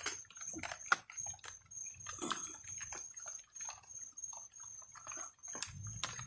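Drizzling rain dripping and splashing onto a tarp: irregular taps and small splats, a few louder ones.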